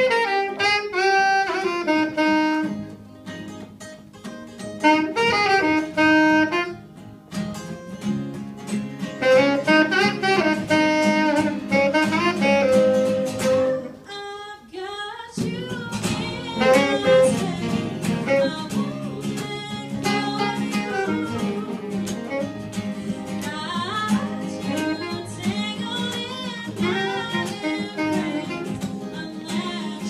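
Live acoustic band: a saxophone plays melody over strummed acoustic guitars. After a short break about halfway, the guitars and a woman's singing voice come back in.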